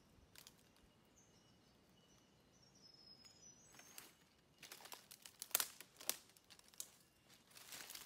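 Footsteps crunching and crackling through dry leaf litter and twigs on the forest floor, starting about halfway in. Faint high bird chirps in the quieter first half.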